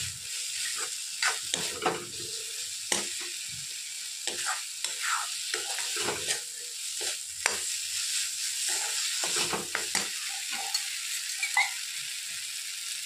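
Fried elephant foot yam (ol) pieces sizzling in tomato masala in a kadhai, with a steel spatula scraping and knocking against the pan as the mix is stirred. The stirring stops near the end, leaving just the steady sizzle.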